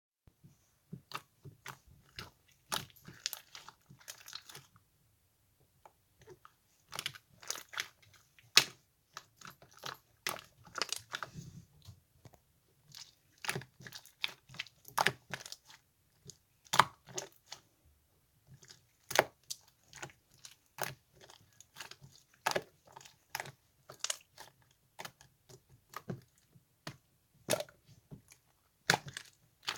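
Slime being squeezed and worked by hand, making many sharp, irregular clicks and wet pops, with a couple of brief pauses.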